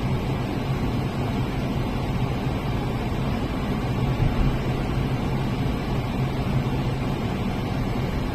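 Steady low mechanical drone, like a running engine heard from inside a vehicle, holding an even pitch throughout.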